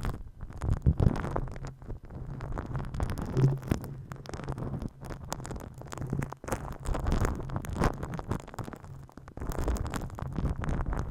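Hands rubbing and massaging right against a binaural ASMR microphone, giving a dense, low, irregular rustle broken by short crackles.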